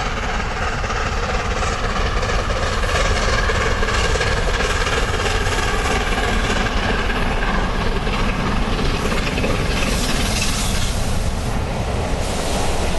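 LNER A4 Pacific steam locomotive 4492 (in reality 60019 Bittern) working a train under steam, with a steady exhaust beat. The coaches' wheels clattering on the rail joints grow louder and hissier near the end.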